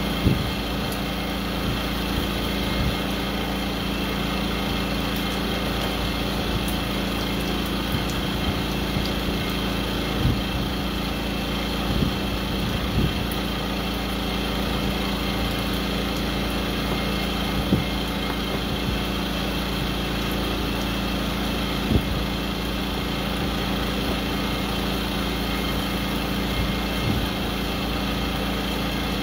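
A steady machine hum runs throughout, with a few scattered sharp knocks of a knife on a plastic cutting board as green onions are sliced.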